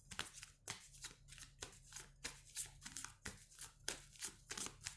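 A deck of tarot cards being shuffled by hand, faint: a quick, even run of soft card flicks, about four a second.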